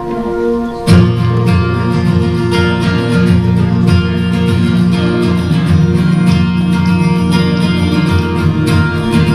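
Instrumental introduction of a contemporary worship song. Held chords open it, and about a second in the full band comes in with guitar, bass and a steady beat.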